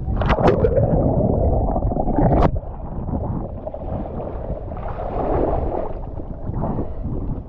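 Water splashing and gurgling around a kayak, with sharp splashes just after the start and a loud one about two and a half seconds in, over a steady low wind rumble on the microphone.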